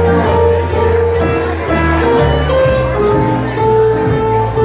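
Live jazz band playing swing dance music: held melody notes over a low bass line and a steady beat.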